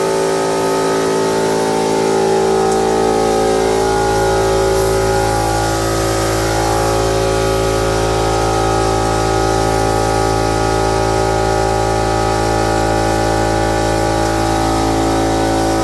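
Spray-gun equipment running steadily as varnish is applied: a motor's constant multi-tone hum with a faint high hiss. A deeper low hum joins about four seconds in.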